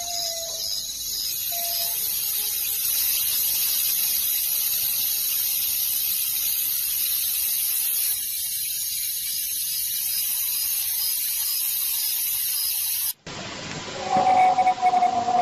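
A steady hiss of recording noise runs for about thirteen seconds, then cuts off suddenly. About a second later a long wolf howl begins, falling slightly in pitch.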